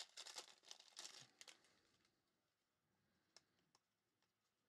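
Faint crinkling and tearing of a foil trading-card pack wrapper being ripped open, dense for about the first second and a half and then dying away, followed by a couple of small clicks as the cards are handled.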